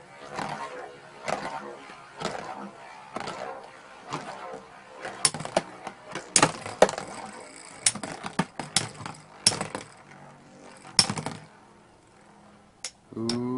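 Two Beyblade Metal Fusion tops, Spiral Lyre and Spiral Capricorn, spinning and battling in a plastic Beyblade stadium: repeated sharp, irregular clacks as their metal wheels strike each other and the stadium, over a faint whir of the spinning tips. The clashes thin out near the end as the tops slow.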